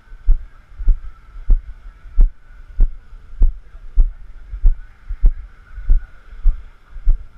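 Footsteps of someone walking on sand, picked up as dull low thumps through a body-worn GoPro action camera. About one and a half steps a second, at an even pace.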